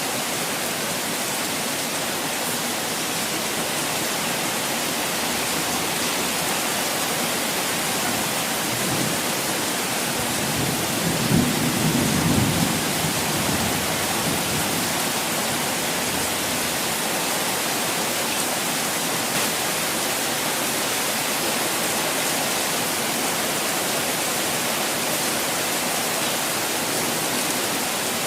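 Steady rush of falling water, an even hiss. About halfway through, a low rumble swells up for a few seconds and fades back.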